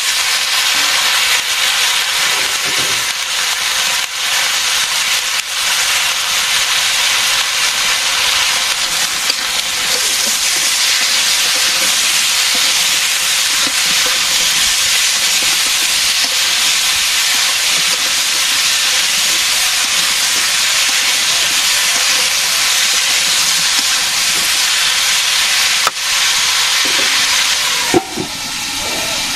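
Chopped vegetables sizzling in hot oil in a wok, a loud steady frying hiss with small spatula scrapes. Near the end a metal lid goes on with a clank and the hiss dies down.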